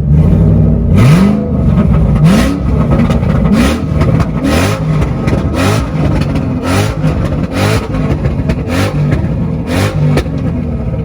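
Ford Mustang Shelby GT500's V8 with a catless, straight-piped exhaust being revved hard over and over, about once a second, each rev rising in pitch, with a sharp pop from the exhaust on each one.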